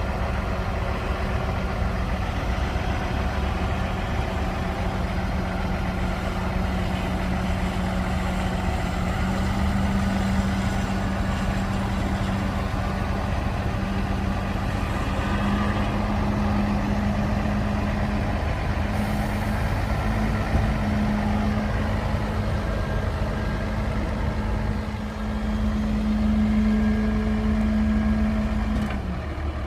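Heavy earthmoving machine's diesel engine running steadily, its note stepping up slightly a couple of times, then changing abruptly near the end.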